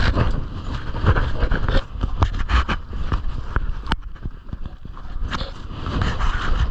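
Crampon footsteps crunching irregularly through wet snow and ice slush, over a steady low rumble, with one sharp click about four seconds in.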